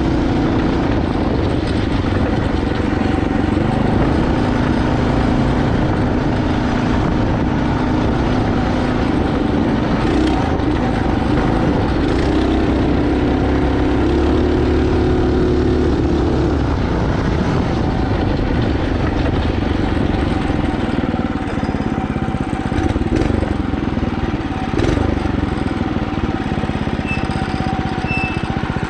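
Mini bike's small engine, driving through a torque converter, running steadily under way, its pitch shifting up and down.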